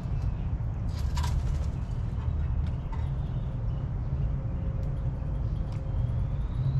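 Outdoor backyard ambience: a steady low rumble with a few faint, brief bird chirps, the clearest about a second in.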